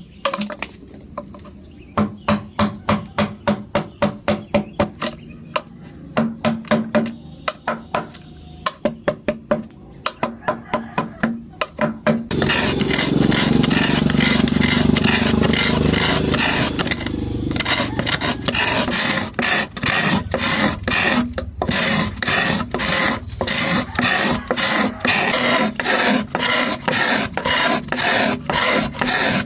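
Wood being worked with a hand tool. For about the first twelve seconds there are quick sharp strokes, about three a second. Then comes a few seconds of continuous scraping, followed by steady filing-like strokes about two a second.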